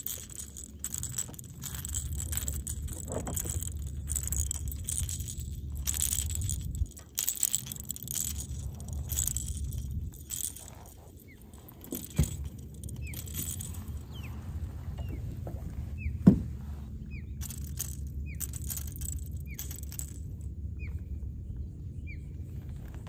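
Fishing reel clicking and rattling as a lure is retrieved, over a steady low rumble. In the second half, a run of short, high, falling chirps comes about once a second.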